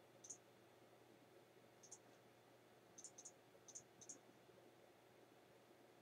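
Computer mouse buttons clicking: about six light, sharp clicks, several in quick pairs, over the first four seconds, against faint room hum.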